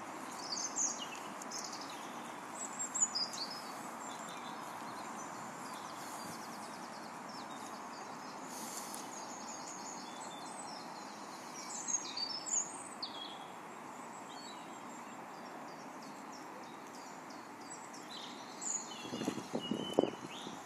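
Songbirds chirping in short, scattered phrases over a steady outdoor hiss. Near the end comes a quick run of splashing and rustling as a dog scrambles out of a pond onto the grassy bank.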